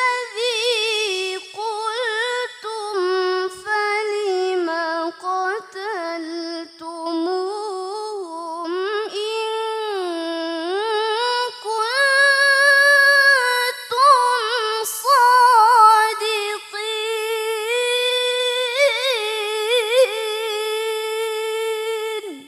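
A woman reciting the Qur'an in the melodic, sung tilawah style: long ornamented phrases with trills and held notes, short pauses for breath, climbing higher about halfway through. The voice breaks off abruptly at the end.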